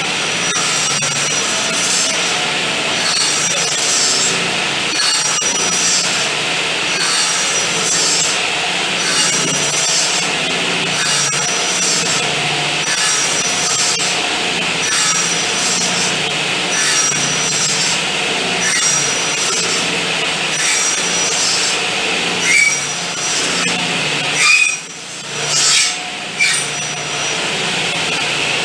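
Circular saw mounted under a table as a table saw, blade running steadily while a pine piece is slid back and forth across it, cutting in about once a second. It is nibbling out the waste of a lap joint in repeated shallow passes. The noise dips briefly near the end.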